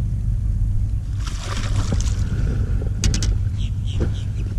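Steady low hum aboard a small fishing boat, with a rush of noise about a second in and a quick cluster of sharp clicks about three seconds in.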